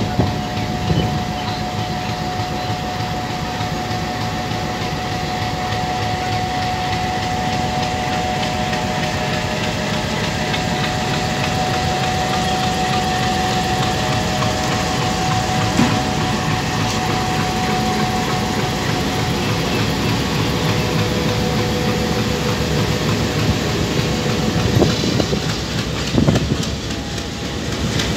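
WDM3A diesel locomotive running under power as it pulls a passenger train out and past, a steady engine drone with a whine whose pitch drops once the locomotive has gone by. Near the end, the coach wheels knock over the rails.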